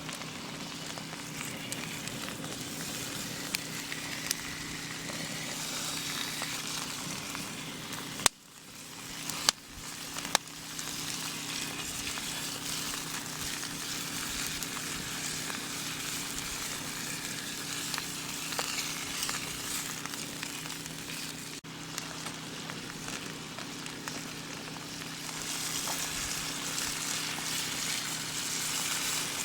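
Beef steak sizzling in a hot pan, a steady frying hiss, with a few sharp clicks or knocks about a third of the way in.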